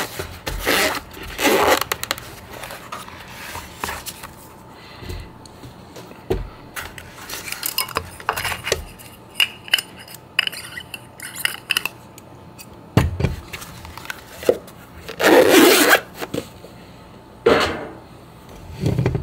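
Irregular scraping, rubbing and handling noises of hands working a zippered soft lens case and a camera lens with its plastic caps, with a dull knock about two-thirds of the way through and the loudest scraping rush shortly after.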